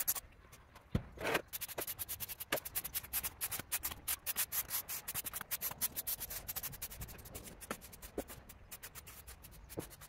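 A stiff-bristled brush scraping quickly over a hard surface in many short, rapid strokes, several a second, with a couple of louder knocks in the first second or two.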